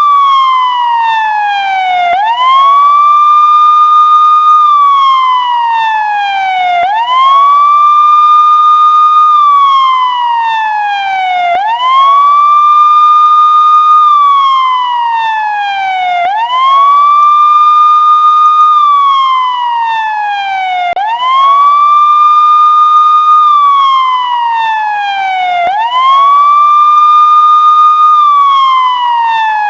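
Emergency-vehicle siren sounding a slow wail. Each cycle rises quickly to a high note, holds it for about two seconds, then slides steadily down for about two seconds before jumping up again, repeating about every five seconds.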